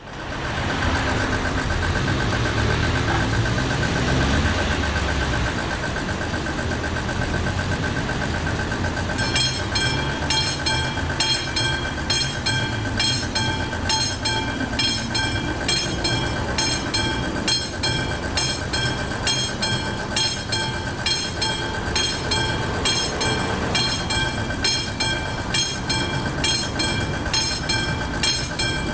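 Level-crossing warning bell of an AŽD 71 signal ringing continuously. About nine seconds in, a regular repeating metallic ringing with high overtones joins it. A road vehicle rumbles past in the first few seconds.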